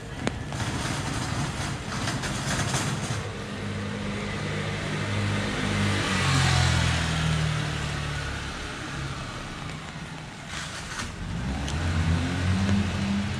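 A car passing on a wet street. Its engine hum and the hiss of tyres on the wet road build to a peak about halfway through, then fade, and another engine draws near at the end.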